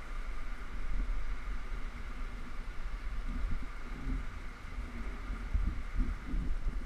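Wind buffeting the microphone in uneven gusts, over a steady hiss.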